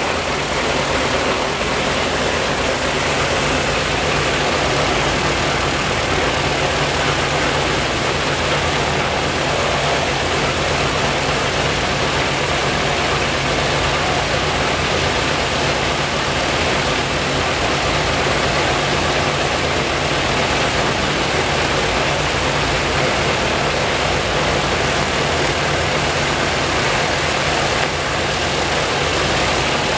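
Il-14T's left Shvetsov ASh-82T fourteen-cylinder twin-row radial engine running steadily with its propeller turning, a loud, even drone that neither rises nor falls.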